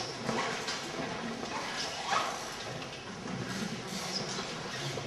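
Indistinct room noise: faint murmuring voices with scattered small clicks and rustles.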